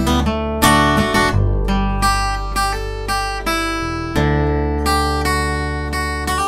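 Acoustic guitar strumming chords on a song's scratch track, a fresh strum every half-second to a second, with a change of chord about four seconds in.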